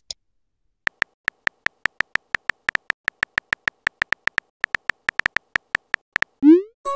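Phone keyboard typing sound effect: a quick, irregular run of short clicks, one per letter typed. Near the end comes a short rising swoosh of a text message being sent.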